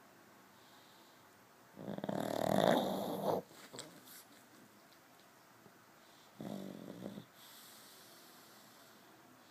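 A sleeping pug snoring: one long, loud snore about two seconds in, then a shorter, softer snore a few seconds later.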